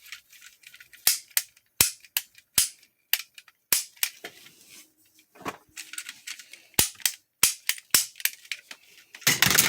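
Toy cap gun firing, a string of sharp snaps at uneven intervals, with a denser, louder burst near the end.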